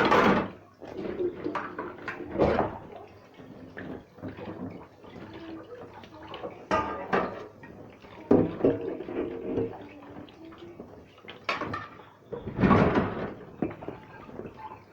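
Dishes being rinsed under a running kitchen tap: water splashing, with irregular clinks and knocks as pieces are handled and set down.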